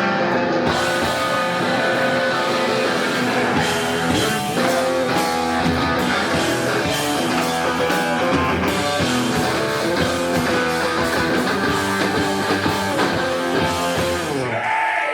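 Live rock band playing: electric guitars over bass and drum kit at full, steady volume.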